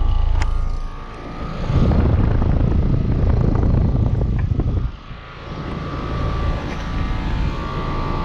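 2011 American Standard Heritage 13 heat pump outdoor unit running in cooling mode: the compressor hums with a steady tone while the condenser fan blows. For about three seconds in the middle a loud low rush of air buffets over it, then the steady hum settles back.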